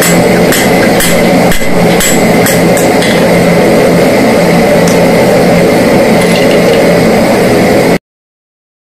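Hand hammer striking red-hot steel on an anvil: a run of sharp blows about every half second in the first three seconds, then a few more spaced out, over a loud steady drone. All sound cuts off suddenly near the end.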